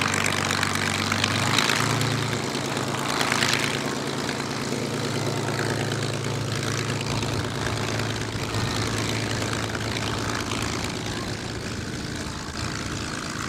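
Supermarine Spitfire's Rolls-Royce Merlin V12 engine running at low power as the aircraft taxis away on grass, with a few brief surges in the first four seconds, then a steady run that slowly fades.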